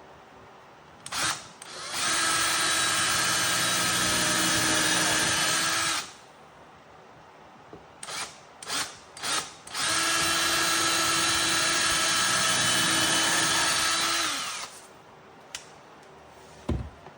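Power drill boring two pilot holes for guitar neck screws, each a steady run of about four seconds preceded by short trigger blips, the pitch sagging as the second run winds down.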